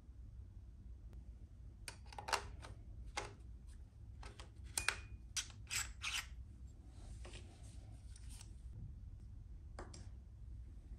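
Sharp clicks and light knocks of a TTArtisan 17mm f/1.4 lens being twisted onto a Sony ZV-E1's E-mount, the clicks coming thickest in the middle, with a brief rubbing sound and one last click near the end. A low steady hum runs underneath.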